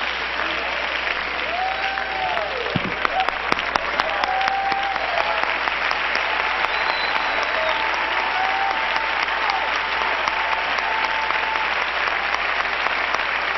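Large congregation applauding, sustained dense clapping from a big crowd.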